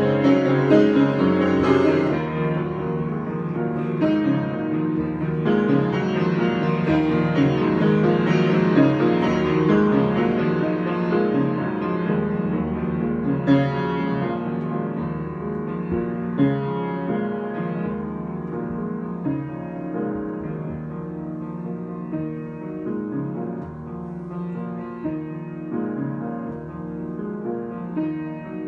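Solo piano improvisation, many notes and chords played continuously, growing gradually softer over the last part.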